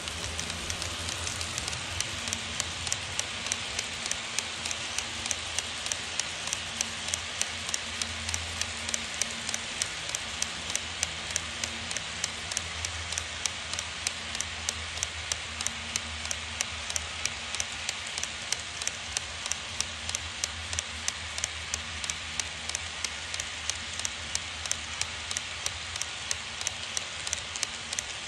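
HO-gauge model freight train of two-axle boxcars rolling past close by: a steady rolling hiss with an even clicking of wheels over the rail joints, about four clicks a second, over a low motor hum.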